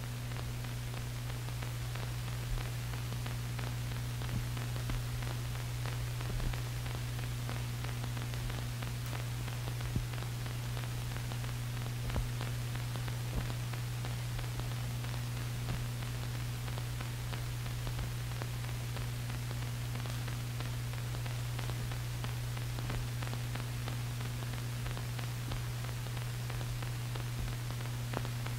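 Steady low electrical hum with hiss from an old film soundtrack, broken by a few faint clicks.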